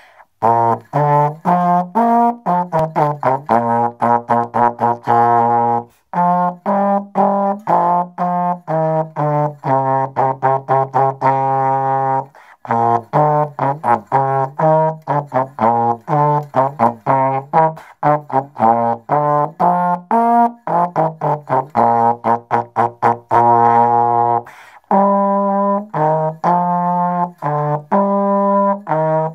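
Solo slide trombone playing a minuet melody as a run of separate notes, with a few short pauses between phrases.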